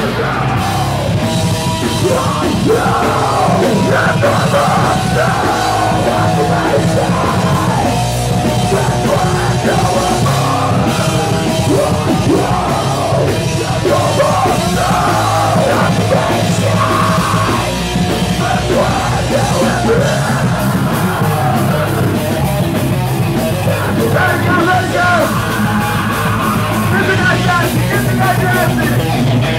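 Live band playing loud heavy rock, with a vocalist yelling over guitars and drums.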